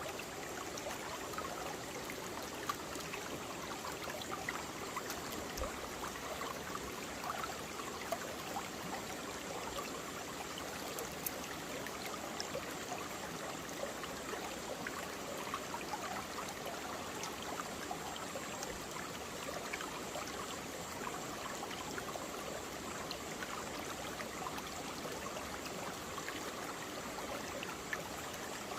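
Mountain valley stream running over rocks: a steady rush of water with many small splashes.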